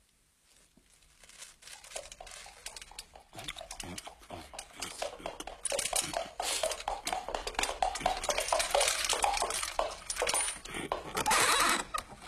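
Greedy, noisy eating: rapid wet chomping and smacking that starts about a second in and grows louder and busier, keeping up a fast, dense patter.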